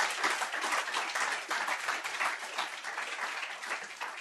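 Audience applauding, many hands clapping together, gradually fading.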